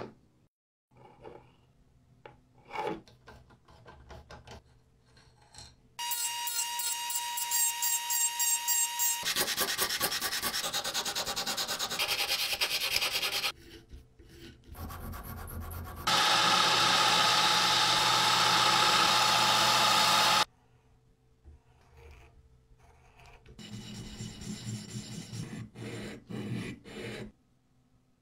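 Metal parts being cleaned and reworked in several short stretches. Light clicks of small parts being handled come first. Then come a few seconds of grinding with a steady whine in it, a stretch of fast rasping, and a louder steady spell of abrasive scraping on metal. Near the end there are shorter rhythmic scraping strokes.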